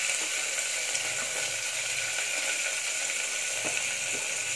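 Chopped onions sizzling in hot oil in the base of a pressure cooker, a steady frying hiss.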